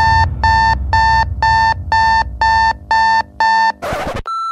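Electronic alarm beeps, eight in a row at about two a second, over a low drone. Near the end a short burst of TV static cuts in, followed by a steady test tone.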